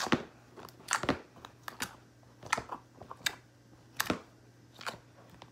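Soft, smooth slime squeezed and pressed in the hands, giving a string of sharp, irregular clicks as trapped air pops out of it.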